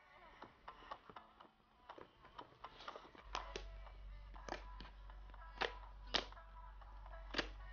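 Soft background music, over which fluffy slime makes sharp clicking pops as it is stirred with a spatula and then kneaded by hand.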